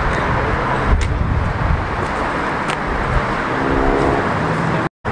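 Car engine noise and low rumble from cars around a car meet. A short pitched engine note comes near the end, then the sound cuts out abruptly.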